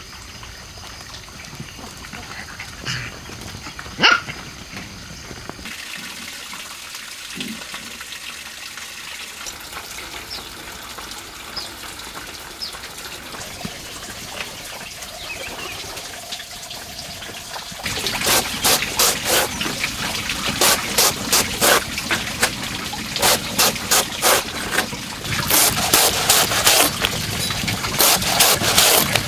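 A long knife chopping rounds off a banana trunk, the blade going through the soft stem and striking a woven bamboo tray. The strokes come in quick runs, starting a little past the middle and making up the loudest sound. Before them there is only faint outdoor background with a few short, sharp sounds.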